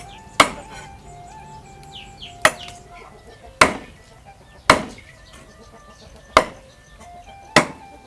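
Six sharp chopping strikes with a knife on a cutting board, about a second or so apart, over background music.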